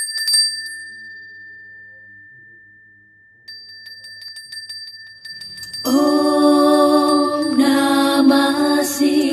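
Intro of a devotional song: a hand bell rings at the start and its tone dies away, then rings again in a quick run of strokes about three and a half seconds in. From about six seconds a loud, sustained humming chant comes in over it.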